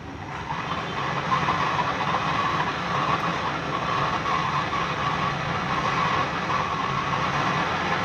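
Handheld butane gas torch on a gas can burning with a steady hiss, growing louder over the first second and then holding, as it heats a refrigerator capillary pipe joint for brazing.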